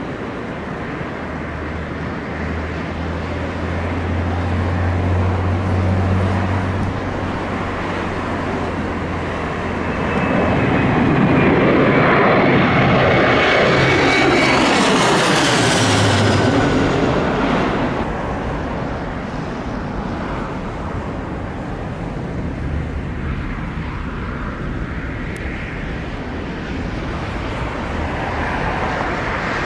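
Airliner flying close past on approach, its engine sound building to a peak near the middle and then dropping in pitch as it goes by. Gusty wind noise runs underneath throughout.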